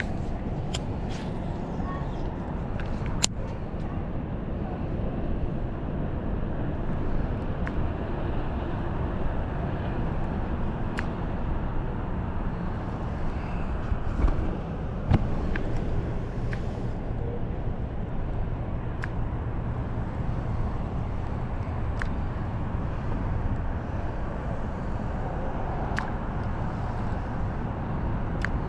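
Steady low rumble and rush of a fishing boat under way, its motor running, with a few sharp clicks and knocks scattered through.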